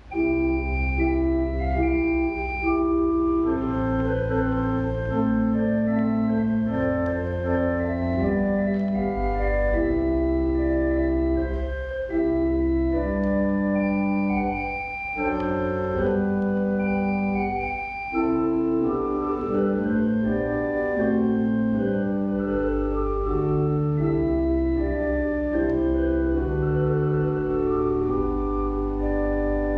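Organ music: slow, held chords over a deep bass line, beginning abruptly.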